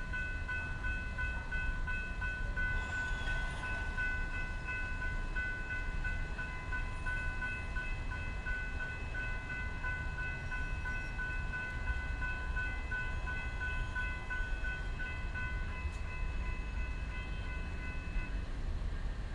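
Railroad grade-crossing warning bell ringing steadily while the crossing signals are active, warning of an approaching train. It stops about a second before the end. A low rumble runs underneath.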